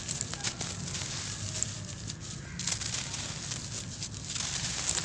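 Dry sand-and-cement clumps crumbling in bare hands: a continuous gritty crunching and sifting, with many small sharp crackles as grains and fragments break off and pour through the fingers.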